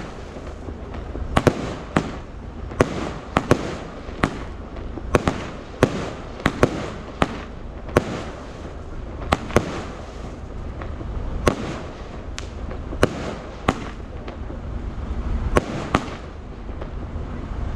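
A box (cake) of aerial fireworks firing shot after shot: sharp bangs about once a second, irregularly spaced, with a steady crackling hiss between them.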